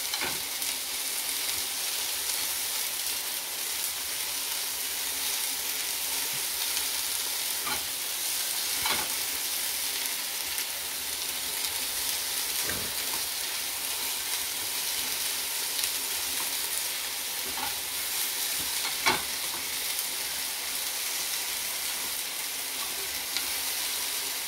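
Food sizzling steadily in a hot frying pan, with a few sharp taps of a cooking utensil against the pan, the loudest about nineteen seconds in.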